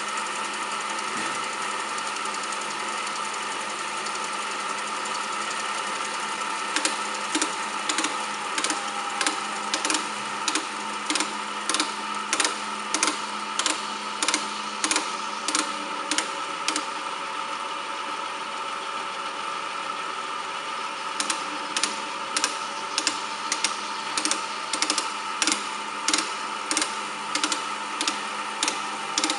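Wilton 7040 horizontal bandsaw running steadily with a steady hum. A regular tick comes about one and a half times a second, pauses for a few seconds around the middle, then returns.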